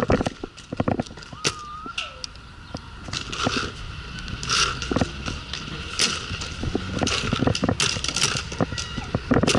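Paintball markers firing in scattered, irregular pops and cracks, with a few louder bursts along the way.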